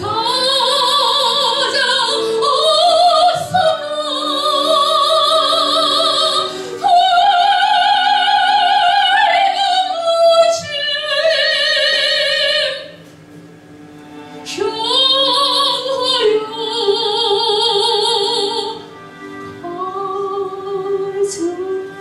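A woman singing a hymn solo in an operatic style into a handheld microphone, holding long notes with wide vibrato. She breaks off briefly a little past halfway, then sings lower and softer near the end.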